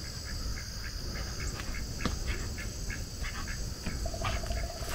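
Steady, high-pitched insect drone from crickets with scattered short bird chirps over it, and a fast pulsing trill joining about four seconds in.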